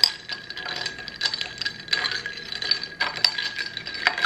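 Metal straw stirring ice cubes in a glass of iced coffee: rapid, irregular clinking of ice and metal against the glass, with the glass ringing on between strikes.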